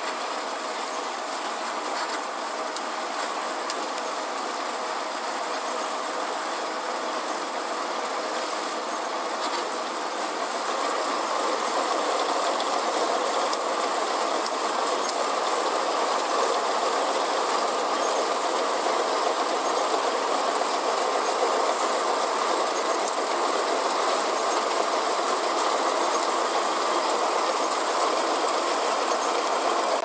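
Kartar TAF 360 rice combine harvester working through the crop: engine and threshing machinery running with a steady mechanical clatter. It grows louder about a third of the way in as the machine comes closer.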